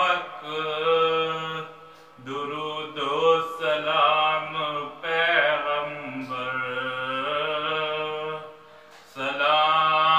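A man's solo voice chanting a salam, an Urdu mourning elegy, with no accompaniment, in long held melodic phrases. It pauses briefly for breath about two seconds in and again near the end.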